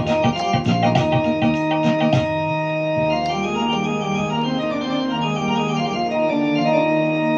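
Electronic keyboard in an organ voice playing a Hindi film song melody: quick notes over a beat for about two seconds, then long held chords that close the song.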